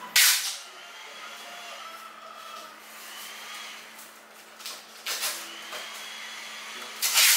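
Adhesive tape pulled off its roll in three short ripping bursts, just after the start, about five seconds in and near the end, over a faint steady hum.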